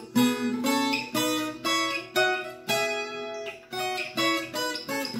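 Viola caipira in cebolão E tuning playing an E major scale on its first and third courses: a run of about a dozen single plucked notes, each one left to ring.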